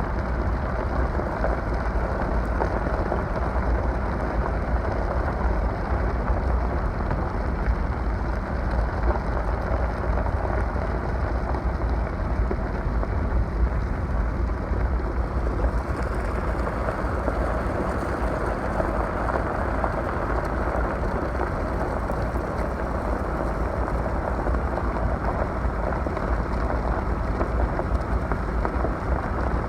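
Steady rushing of spring floodwater from an overflowing slough, with a low rumble of wind on the microphone underneath.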